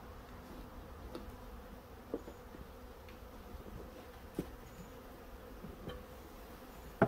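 A swarm of honeybees buzzing with a faint, steady hum. A few light knocks sound along the way, and one sharp knock comes near the end.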